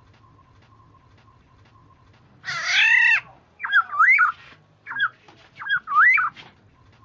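Black-naped oriole (kepudang) calling: a harsh, rasping call about two and a half seconds in, then a run of short, fluty whistled phrases.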